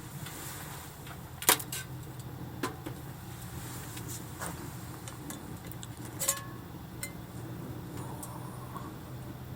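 Camp kitchenware or gear being handled: a few sharp clinks and knocks, the loudest about a second and a half in, over a steady low hum.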